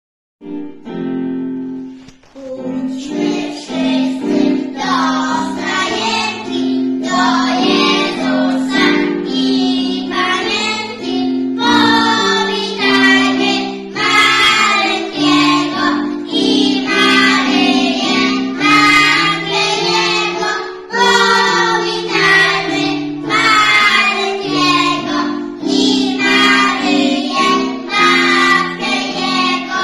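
A group of preschool children singing a Polish Christmas carol together, starting about half a second in.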